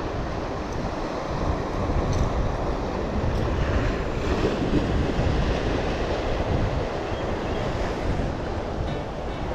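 Surf washing and breaking over shoreline rocks, with wind buffeting the microphone in a steady low rumble.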